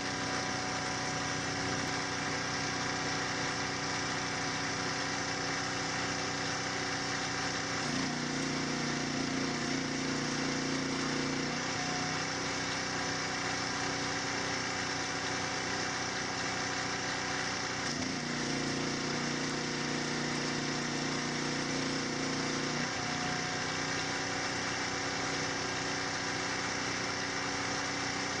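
A steady machine hum with several fixed tones, like a motor running in a metal shop. A stronger, deeper hum joins in twice, once for about four seconds and once for about five, then drops away.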